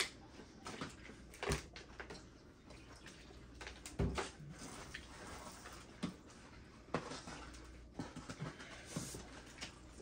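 Small eating and handling noises at a table: scattered light clicks and knocks, the loudest a dull thump about four seconds in.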